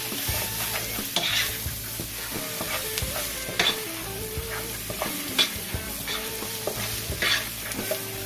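A spatula stirring and scraping a skillet of chopped chicken and vegetables coated in flour, cooking in hot butter and rendered fat as a roux browns, with a light sizzle. Scraping strokes come every second or two.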